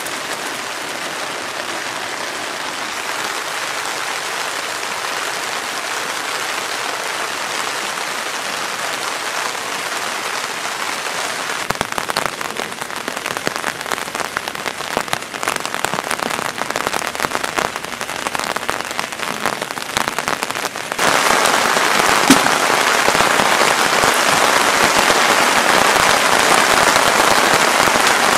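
Heavy rain falling steadily on a tarp, an even hiss. Sharp crackles and pops join in about twelve seconds in, and about two-thirds of the way through the hiss abruptly gets louder.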